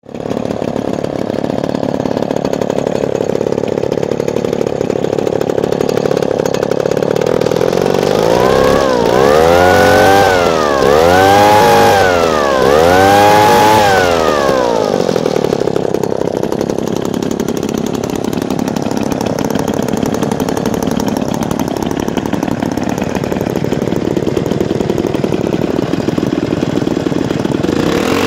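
Vintage Mall chainsaw engine idling, then revved up and let fall back to idle three times in quick succession about a third of the way through.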